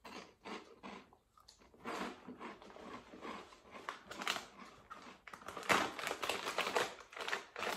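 Crunching and chewing a Cofresh Chilli Cheese Grills puffed potato snack, a run of irregular crisp cracks. About halfway through the crisp packet rustles and crinkles as a hand goes into it, with the loudest crackles near the end.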